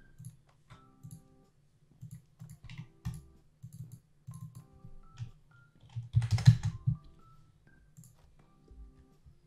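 Computer keyboard typing and mouse clicks, with a quick, loud run of keystrokes about six seconds in.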